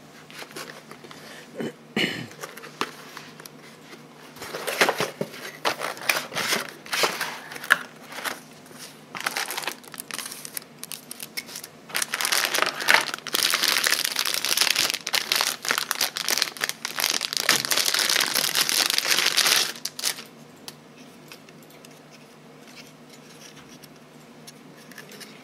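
Clear plastic anti-static bag crinkling as a graphics card is unwrapped. Scattered rustles and clicks come first, then a continuous stretch of loud crinkling past the middle, which then dies down to faint handling noise.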